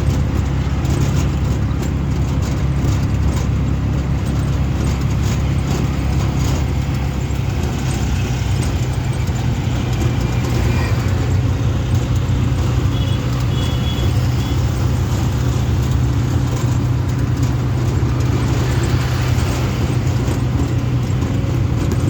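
Auto rickshaw engine running steadily with road noise, heard from inside the ride.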